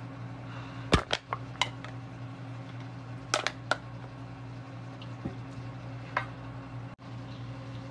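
Aluminium soda can being opened and handled: a loud sharp click about a second in with a few smaller clicks after it, then another quick cluster of metallic clicks a little after three seconds and a couple of single taps later, over a steady low hum.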